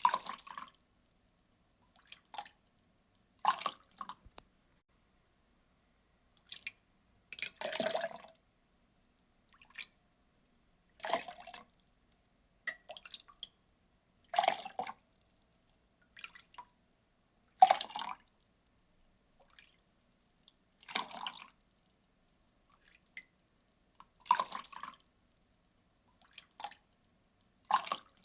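Water poured in short splashes: a burst of under a second every one to two seconds, some louder and longer than others, with silence between.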